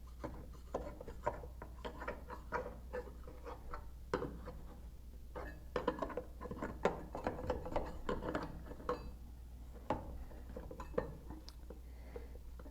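Irregular light metallic clinks and scrapes of a packing chisel working oakum down into a drain pipe's hub joint by hand, a few taps a second at times, with short pauses between.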